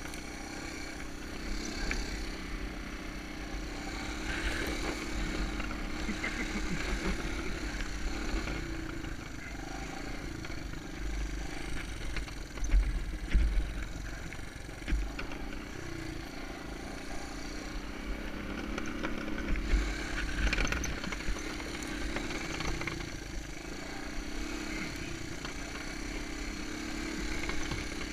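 Honda ATC 125M's single-cylinder engine running continuously, its pitch and loudness rising and falling, with a low rumble underneath.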